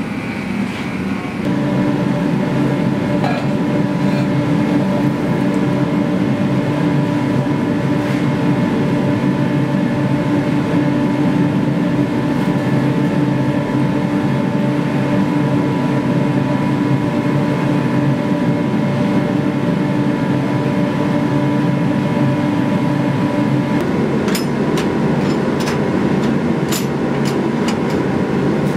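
Gas forges running with a loud, steady noise and an even hum. Near the end the hum changes and a few sharp metallic clicks sound.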